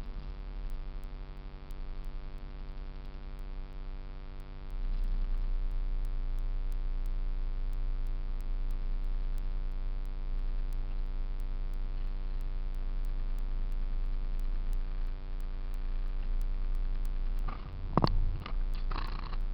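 2005 Kenworth T660 diesel truck engine idling with a steady hum, getting louder about five seconds in; the owner points to a bad sound from the turbo. A few sharp knocks and clatter near the end.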